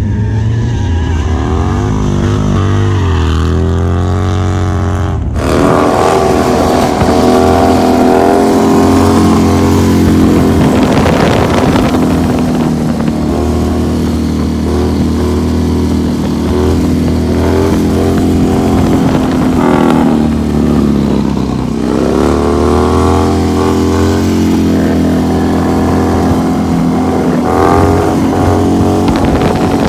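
Motorcycle engines running on a street for the first few seconds. After a sudden cut, a Harley-Davidson Road Glide bagger's V-twin engine runs hard through a long highway wheelie, its pitch falling and rising as the throttle is worked.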